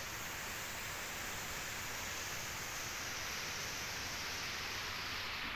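Heavy rain pouring onto a swimming pool's water surface: a steady, even hiss.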